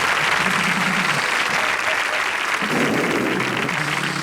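Studio audience applauding steadily, a dense patter of clapping.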